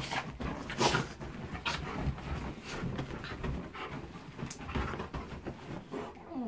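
Siberian Husky and Shiba Inu puppy play-fighting on a bed: dogs panting and scuffling, with irregular rustles and soft thumps on the bedding.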